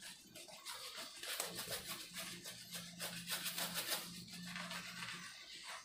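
Shaving brush swished rapidly back and forth over a lathered face, a quick scratchy rhythm of strokes. A faint low hum sounds under the strokes from about a second and a half in.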